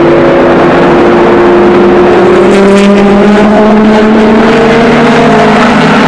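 Le Mans prototype race cars' engines at high revs, pitch climbing steadily as they accelerate toward the microphone; a second engine note joins about two seconds in.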